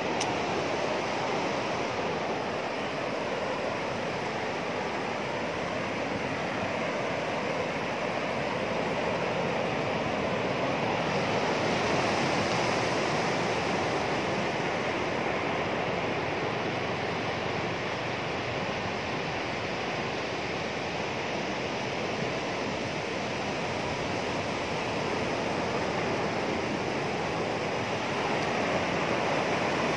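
Ocean surf breaking on a flat sandy beach: a steady wash of waves that slowly swells and eases.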